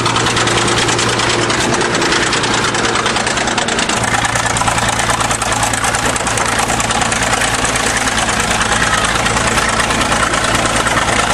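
1953 International TD20 crawler bulldozer's diesel engine running steadily at a loud, even idle, its tone shifting slightly about four seconds in.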